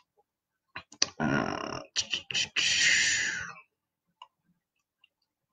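A man's soft breathy laugh and exhale, with a few small mouth clicks, in the first half; then quiet.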